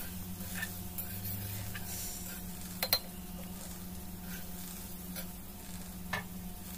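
Potato cubes frying in oil in a metal kadai, a faint sizzle under a steady low hum, with a few light metal clinks of a spatula against the pan, the sharpest about three seconds in.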